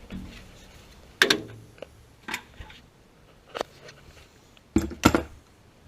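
Hard objects clinking and knocking as they are handled, in about five sharp knocks, the last two in quick succession near the end.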